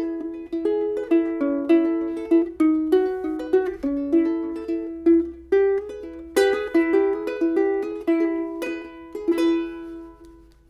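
Soprano ukulele fingerpicked: a melody of single plucked notes, about two or three a second, each ringing briefly. The last note rings out and fades near the end.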